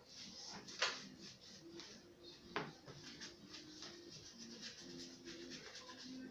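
Paintbrush scrubbing and dabbing white emulsion paint onto dry twigs: soft scratchy brush strokes, with two sharper ones about one second and two and a half seconds in.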